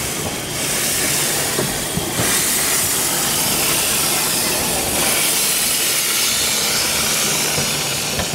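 Narrow-gauge steam locomotive I K No. 54 moving slowly with a steady, loud hiss of steam escaping near its cylinders, growing stronger about two seconds in, with a few light clicks.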